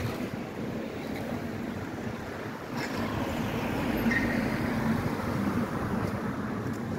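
Street traffic noise beside a ZET low-floor tram standing at its stop: cars passing in the adjacent lane and a steady rushing noise, with a faint click about three seconds in.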